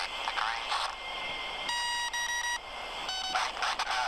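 Electronic beep tones from a robot sailing boat's autopilot, heard over a radio link: two beeps just before halfway, then a shorter, lower beep. The tones are coded telemetry reporting range to waypoint, speed and wind direction.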